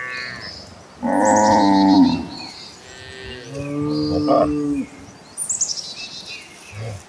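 Cattle mooing: two long moos, one about a second in and another around four seconds in, with the end of a higher call at the start. Birds chirp in the background.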